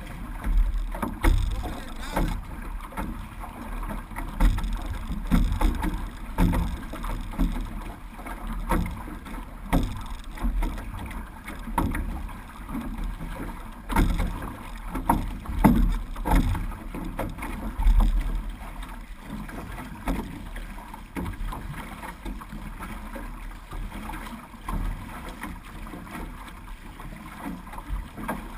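Six-person outrigger canoe under way: paddle blades dipping and pulling through the water in a steady rhythm of roughly one stroke a second, with water splashing and rushing along the hull.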